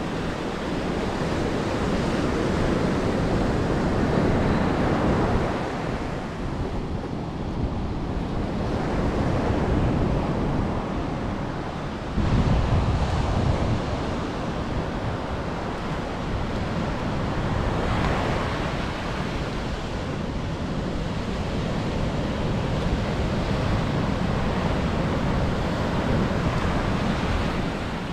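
Ocean surf breaking and washing on the beach, with wind rumbling on the microphone; the level swells and eases as the waves come in.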